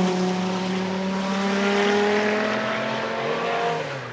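Audi 200 Quattro Trans-Am race car's turbocharged five-cylinder engine pulling away after passing by, its note sagging slightly, with a short rise and fall in pitch near the end as it fades.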